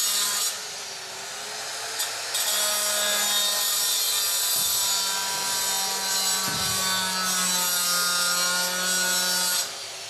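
Handheld circular saw cutting through a prefab wall panel, a loud, high-pitched cutting noise over the steady whine of the motor. The cut eases off about half a second in, bites again at about two seconds, and the noise cuts off near the end as the saw winds down.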